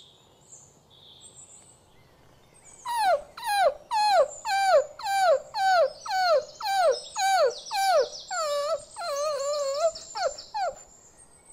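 Cartoon dog whimpering as it is left alone: a string of short whines falling in pitch, about two a second, starting about three seconds in. Near the end they turn into a few longer wavering whines, then stop.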